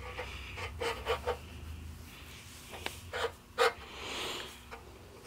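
Lubed steel shift rail for fourth and fifth gear being slid through its shift fork and case bore in a Ford tractor transmission: light metal scraping with a few short clicks as it goes in.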